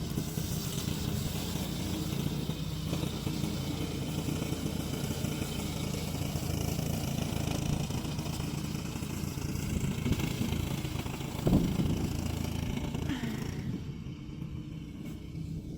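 Gasoline engine of a remote-control grass cutter running steadily. There is a brief thump about eleven and a half seconds in, and the engine gets a little quieter near the end.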